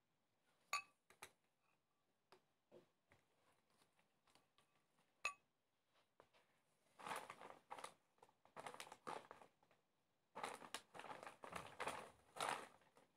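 Plastic cling film crinkling and rustling as it is stretched over a bowl, in two spells of a couple of seconds each in the second half. Earlier, a few sharp clinks of a utensil against the bowl.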